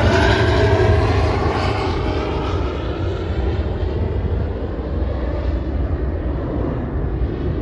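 Airplane passing overhead: a loud rush of engine noise with a faint whine dropping in pitch in the first second, growing duller and quieter as the plane moves away.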